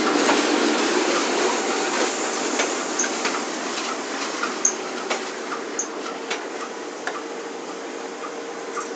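Railway passenger coaches rolling along a platform: a steady rumble of wheels on rail with irregular clicks and light ticks, slowly fading.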